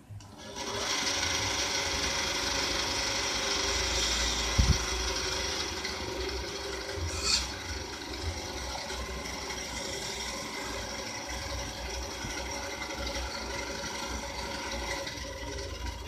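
Wipro JDD 160 benchtop bandsaw starting up about half a second in and running steadily, its blade rasping through small pieces of wood. It is loudest for the first few seconds, then runs on a little quieter, with a couple of short sharp clicks.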